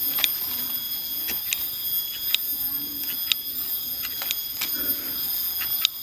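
Hand pruning shears snipping thin branches of a young durian tree: a sharp click every second or so, over a steady high-pitched background tone.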